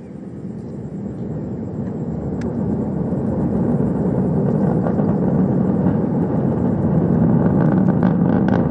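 Launch rumble from the Atlas V rocket's engines as it climbs away, swelling steadily louder over the first few seconds and then holding, with a crackle coming through near the end.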